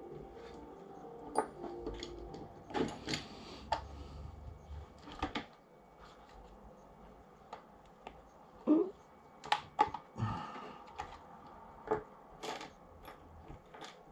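Clicks, knocks and rattles of a Specna Arms E-14 airsoft rifle's parts being handled and pulled apart, irregular, with the loudest cluster about nine to ten seconds in.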